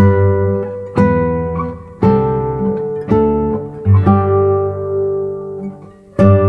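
Background music: acoustic guitar chords strummed about once a second, each ringing out and fading before the next.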